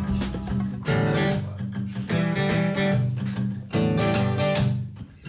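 Acoustic guitar strummed in chords, about one strum a second, the sound dying away near the end.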